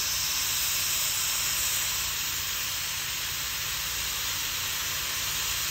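Hot-air plastic welder blowing compressed air through its heated nozzle: a steady, even hiss.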